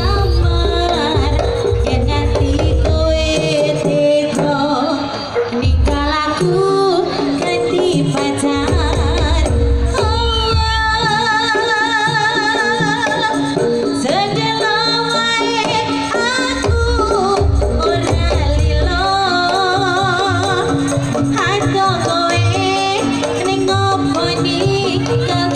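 Live Javanese jaranan music: a kendang drum ensemble with gamelan, and a woman singing a wavering, ornamented melody. Deep drum beats come in and out under the steady melody.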